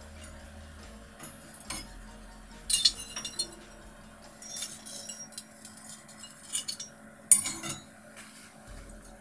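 Metal skewers of grilling fish clinking against the metal rails of a charcoal grill as they are handled and turned: a series of sharp, irregular clinks, the loudest about three and seven seconds in.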